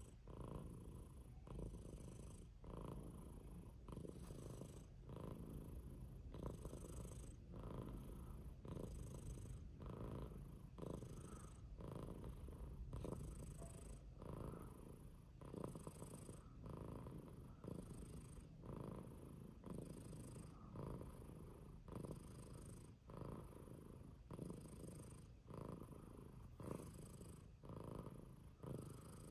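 Domestic long-haired tabby cat purring steadily, the purr swelling and easing with each breath about once a second.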